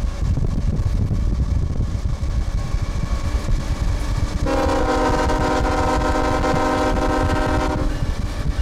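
Norfolk Southern diesel freight locomotive sounding its multi-tone air horn in one long blast of about three and a half seconds, starting about halfway through, over the steady low rumble of the moving train.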